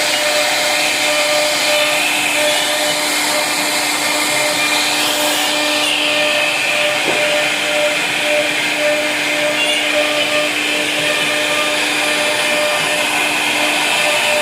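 CNC wood router running steadily while carving a wooden board, its spindle giving a loud, constant whine at several pitches over a noisy cutting hiss.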